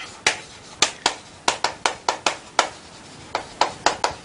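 Chalk tapping and scratching on a chalkboard as characters are written stroke by stroke: a quick run of short sharp taps, a pause a little before three seconds in, then another run.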